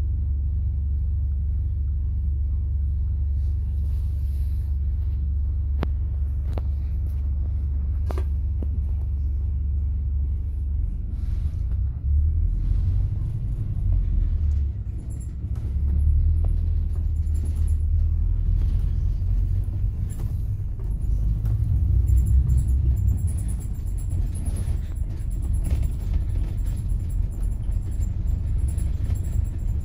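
Bus engine and road rumble heard from inside a moving bus. The rumble is steady for about the first ten seconds, then rises and falls as the bus changes speed, with a few sharp clicks or rattles early on.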